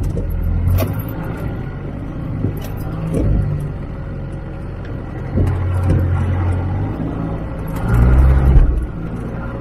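Four-wheel-drive's engine working over a rocky track, swelling with the throttle three times, with occasional knocks and clunks from the vehicle as it climbs over rock.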